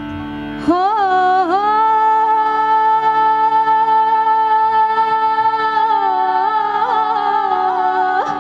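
A woman singing live into a microphone. About a second in she enters on one long held note over a steady drone, then ornaments it with quick melodic turns near the end.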